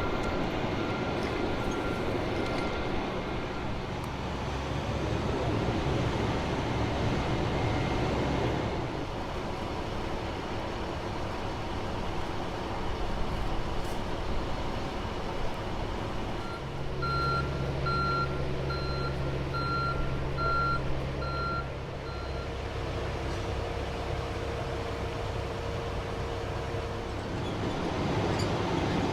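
Heavy truck engines running steadily, with a vehicle's reversing alarm beeping about eight times, evenly spaced, a little past the middle.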